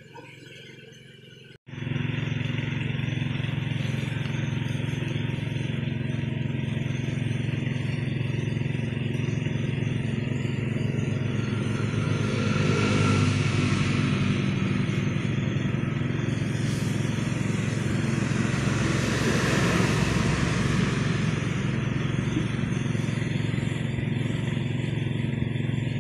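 An engine running steadily, starting abruptly after a brief cut in the sound and swelling louder twice, around the middle and again about three-quarters of the way through.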